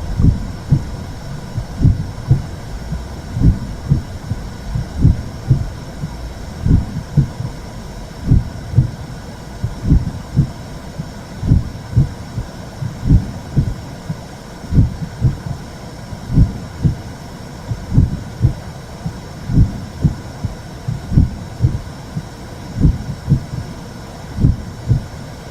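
Womb sound: a heartbeat thudding in paired beats about every second and a half over a steady whooshing noise.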